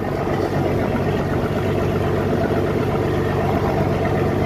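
Wooden tour boat's engine running steadily with an even low hum as the boat gets under way, growing a little louder just after the start.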